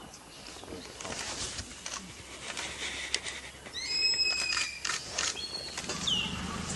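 Short high-pitched animal calls, a couple of thin chirps about four seconds in and a falling call about six seconds in, over faint rustling and scuffling.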